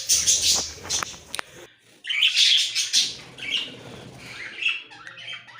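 Budgerigars chirping and chattering in repeated bursts of high twittering, loudest about two seconds in.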